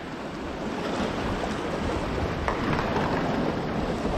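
Ocean surf washing against rocks, a steady rushing, with wind buffeting the microphone.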